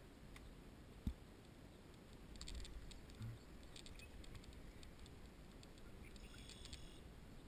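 Fishing reel being cranked: faint, quick light clicking in short runs, the last and longest near the end as a small fish is reeled in. A single dull knock sounds about a second in.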